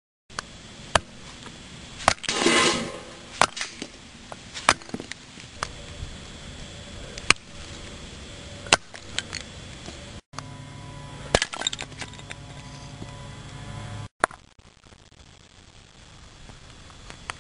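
Scattered sharp clicks, clinks and knocks of hard objects, with a louder rattling burst about two seconds in. A low steady hum runs for a few seconds after a brief cut about ten seconds in.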